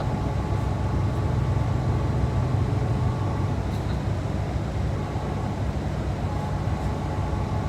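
A vehicle engine running with a steady low rumble and hum, with no change through the pause.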